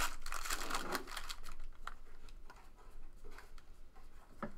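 A foil trading-card pack pulled open with a brief crinkle, then a stack of baseball cards thumbed through by hand: a run of light clicks and paper rustles.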